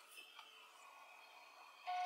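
Faint steady whine from an AVID CNC router as the spindle's bit creeps down toward a Z-axis touch plate. A short electronic beep sounds near the end.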